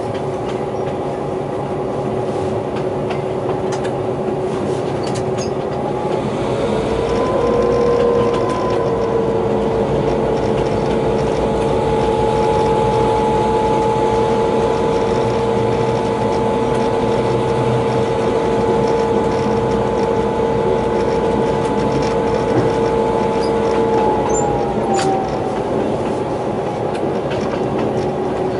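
DQ class diesel locomotive running at the head of a loaded ore train, a steady rumble of engine and wheels on rail. Its pitched hum steps up about six seconds in, holds steady, and drops back near the end.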